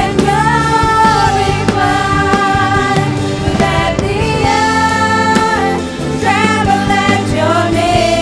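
Christian worship song: a singer holds long, wavering melodic lines over sustained instrumental accompaniment with a regular beat.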